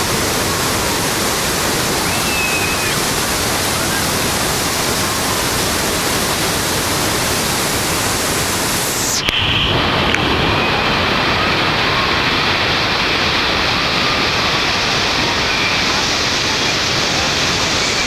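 Loud, steady rushing roar of Niagara Falls' falling water. About nine seconds in the sound changes abruptly with a small click, its highest hiss dropping away.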